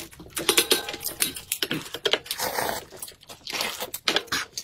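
Crinkly plastic snack wrappers crackling as they are torn and peeled open, mixed with close-miked slurping and chewing of noodles.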